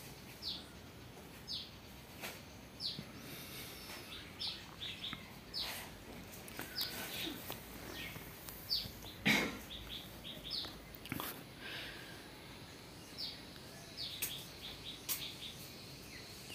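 Birds chirping: short, high, downward-sliding chirps about a second or so apart. A few soft knocks come through, the strongest about nine seconds in.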